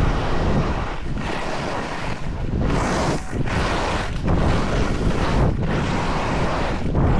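Skis scraping over hard, poor-condition snow through a series of turns, with wind rushing over the microphone. The scraping drops out briefly about once a second between turns.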